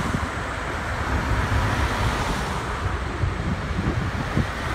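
Steady street traffic noise: a Škoda 15T low-floor tram rolling past and away, then a car driving by. Wind buffets the microphone, and the hiss eases a little past halfway.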